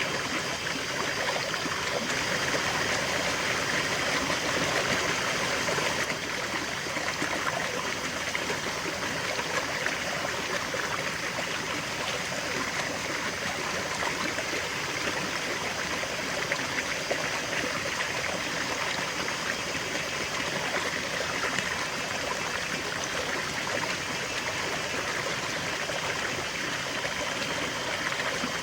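River water flowing steadily, an even rushing with a fine babbling texture over stones.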